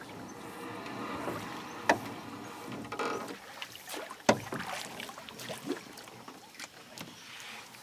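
Water sloshing against a small boat's hull, with two sharp knocks about two and four seconds in.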